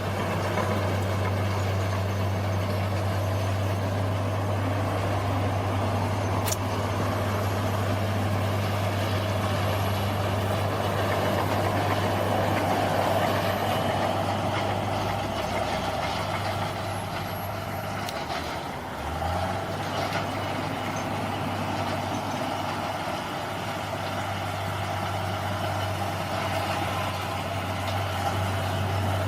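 Bulldozer's diesel engine running steadily, with a brief drop in level a little past the middle before it picks up again.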